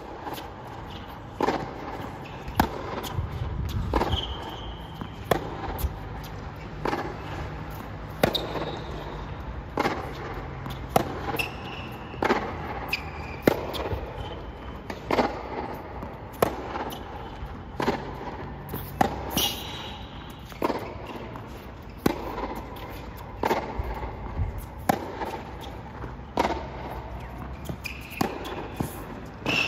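Tennis rally on a hard court: sharp pops of the racket strings striking the ball and the ball bouncing, one about every second and a half, with short high shoe squeaks between some of the shots.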